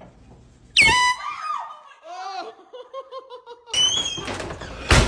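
Startled people in an air-horn prank: a sudden high shriek about a second in, then laughter, and a loud high-pitched scream near the end, cut by a sharp thump.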